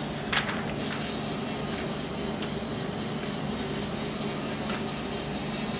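Lego Mindstorms NXT 2.0 plotter's servo motors and plastic gears running steadily as its roller feeds in a sheet of paper, with a few light clicks.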